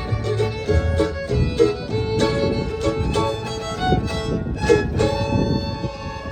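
Fiddle playing an old-time bluegrass tune over guitar backing with a steady strummed beat, the last notes ringing on near the end.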